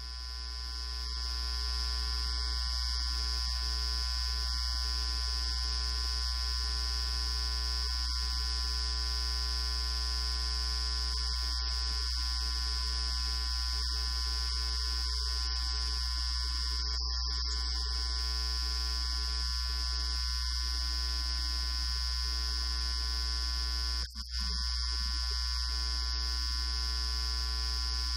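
Steady electrical hum and buzz, a low mains-type drone with a thin high whine above it. It swells in over the first couple of seconds and drops out for a moment about 24 seconds in.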